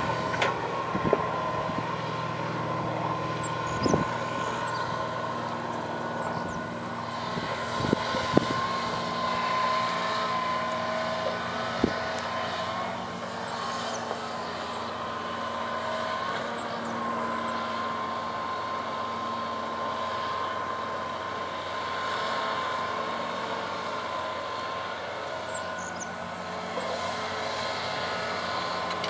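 John Deere 230C LC hydraulic excavator's diesel engine running steadily as the machine digs and swings, with a steady high whine over it. A few sharp knocks come in the first twelve seconds.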